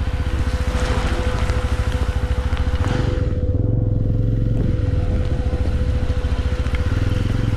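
A vehicle engine runs steadily on the move, with a dense low pulsing and a steady tone, under a hiss of road and air noise. The hiss drops away for a moment about three seconds in, while the low engine rumble grows stronger.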